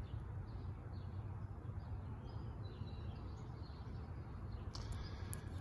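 Quiet outdoor background with a steady low rumble and faint distant bird chirps, plus a few faint clicks near the end.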